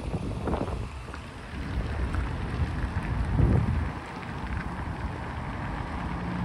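Cars driving past slowly, their engines rumbling and tyres hissing. The sound swells to its loudest about three and a half seconds in, with wind noise on the microphone throughout.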